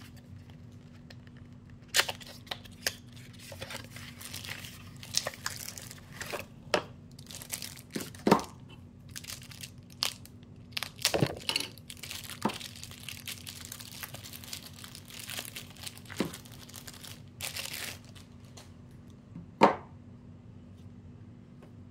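Clear plastic wrapping crinkling and tearing as a boxed sharpening stone is unwrapped, with scattered sharp clicks and taps from handling the box and the stone's plastic case; the loudest click comes near the end.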